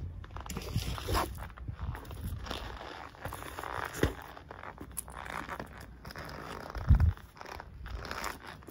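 Rubber-soled Nike Air Force 1 Mid sneakers scuffing and stepping on concrete while stomping on a banana, with a sharp knock about four seconds in and a heavy stomp near seven seconds as the banana is squashed and bent.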